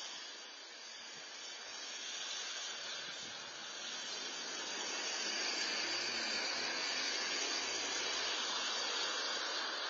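Steady hiss of wet outdoor ambience picked up by a security camera's microphone, growing louder about halfway through.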